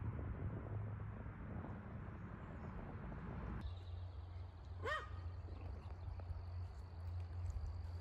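Outdoor background with a low rumble that changes abruptly a little over three and a half seconds in, and one short chirp about five seconds in.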